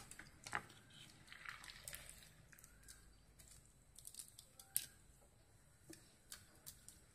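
Near silence, with faint irregular taps and scrapes of a wooden spatula stirring vermicelli in milk in a frying pan; the clearest tap comes just before five seconds in.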